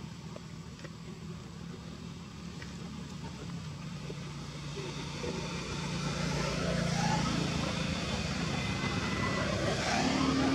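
A motor vehicle's engine running, growing louder about halfway through.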